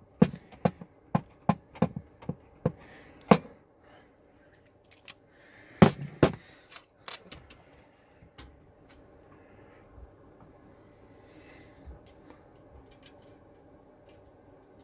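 Hand rivet nut tool being worked on a threaded rivet nut: a run of sharp metal clicks at about two a second, two loud knocks about six seconds in, then fainter scattered ticks.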